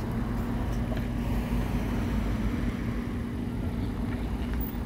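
Steady low outdoor rumble with a constant low hum underneath, like distant traffic.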